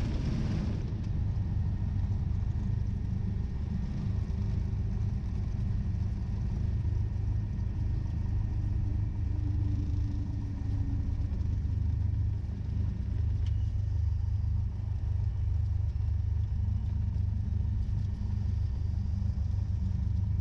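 Cessna 172 engine idling, heard from inside the cabin during the landing rollout: a steady low rumble.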